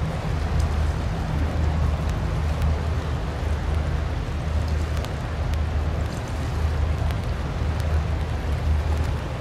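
Low, steady rumble of a large Coast Guard patrol ship under way, with a hiss of water and light rain over it.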